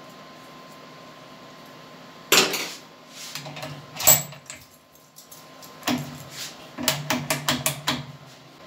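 Metal tools clinking and tapping against the milling spindle's collet holder as a small cutter is fitted: a sharp clank about two seconds in, a ringing metallic ping about four seconds in, then a quick run of about eight clicks near the end.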